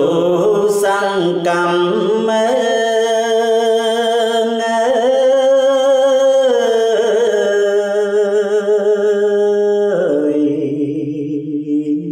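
A man's voice chanting Khmer verse in kakgati metre, in the slow, lamenting pileap style: one long drawn-out line with a wavering pitch. The pitch steps up about five seconds in and falls back a second and a half later. The line breaks off about ten seconds in and carries on more softly.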